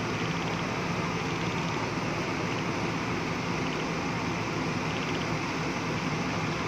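Diesel engine of a JCB tracked excavator running steadily at an even pitch.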